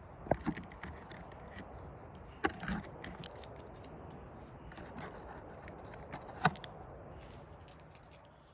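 Scattered metallic clicks and scrapes of a firearm being handled during a reload, the loudest pair of clicks about six and a half seconds in.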